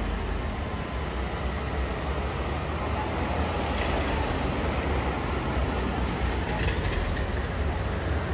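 Heavy truck engine running with a steady low rumble and road noise.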